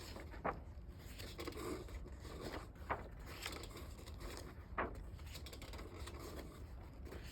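Faint handling of plastic model-kit parts: light rustling with three sharp clicks or taps spaced a couple of seconds apart.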